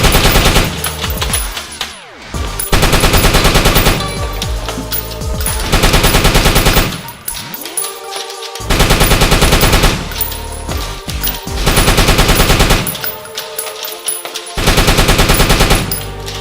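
Bursts of rapid automatic gunfire, about a second each and repeating every three seconds or so, with music underneath.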